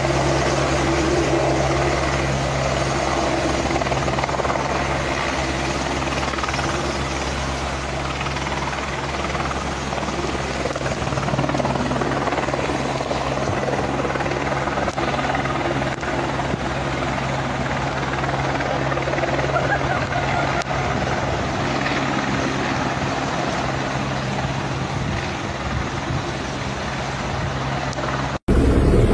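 Police helicopter hovering low: a steady drone of rotor and engine.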